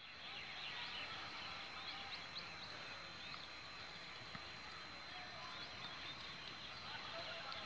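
Faint open-field ambience with a chorus of small birds chirping, many short high calls overlapping throughout.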